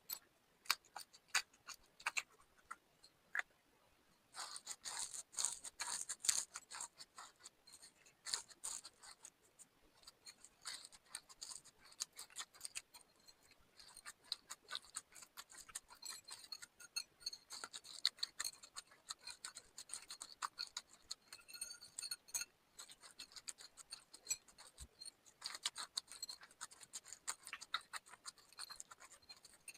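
Slime being mixed and squeezed by hand, giving a steady run of small sticky clicks and crackles that thicken into dense stretches about four seconds in and again near the end.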